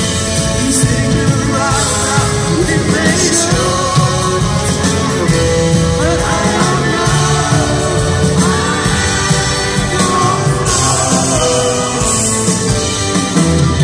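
Live band performance: a man singing a slow melody while playing acoustic guitar, backed by drums and electric guitar, heard through the concert sound system.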